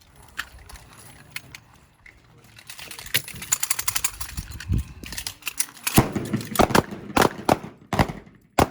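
Handgun gunfire on a shooting range: a quick string of sharp shots from several guns, louder and more distinct from about six seconds in.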